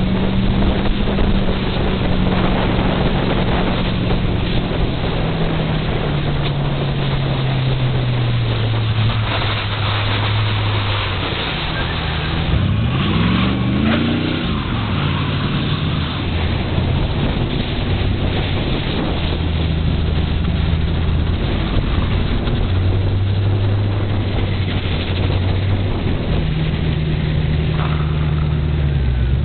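Enduro race car engine picked up by a hood-mounted camera. Its pitch falls slowly over the first ten seconds as the car slows, it revs up and back down once about thirteen seconds in, and then it runs low and steady.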